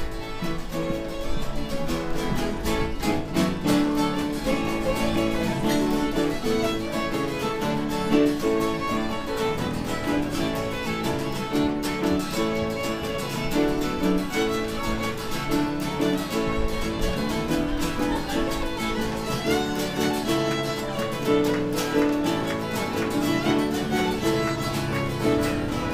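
Fiddle playing a tune, with two acoustic guitars strumming the accompaniment.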